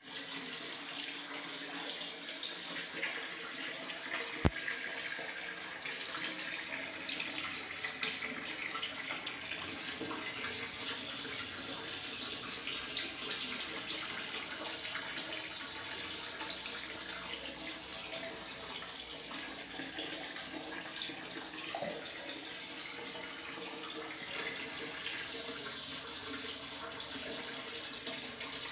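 Steady hiss of running water, with one sharp click about four and a half seconds in.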